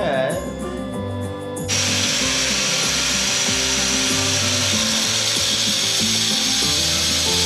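Angle grinder cutting steel: a steady, high grinding hiss that starts about two seconds in, over background music.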